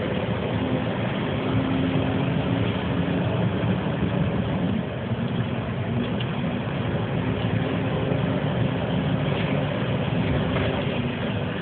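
Heavy goods vehicle's diesel engine running at low speed as the truck drives along, heard from the vehicle: a steady low drone that dips slightly about five seconds in.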